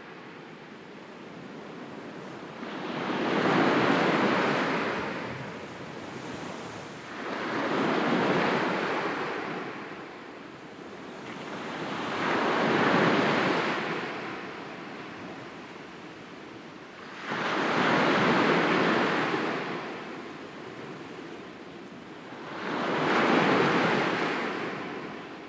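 Sea waves breaking and washing up the shore, five swells that each build and fall away about every five seconds, with a softer rush between them.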